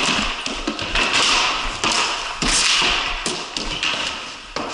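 Floor hockey play on a concrete floor: sticks tapping and slapping the floor and ball, with scrapes and thuds in quick, irregular succession.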